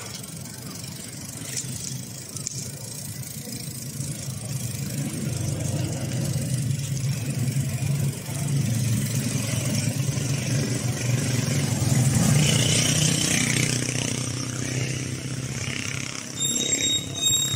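A motor vehicle's engine heard from a moving bicycle, its low hum swelling over several seconds as it comes close and then easing off, over steady road and wind noise. A brief high-pitched squeal sounds near the end.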